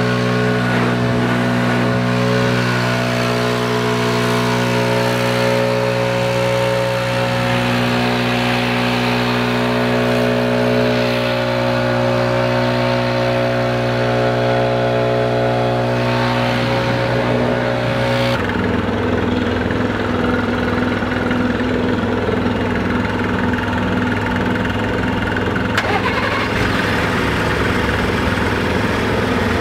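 Stihl backpack leaf blower engine running steadily at high throttle, blowing snow. About two-thirds of the way through, its sound changes abruptly and turns rougher.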